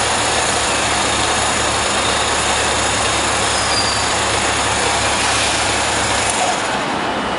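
Heuliez GX417 natural-gas city bus engine running with a loud, steady drone and hiss during a hard start. The low drone drops away about six and a half seconds in.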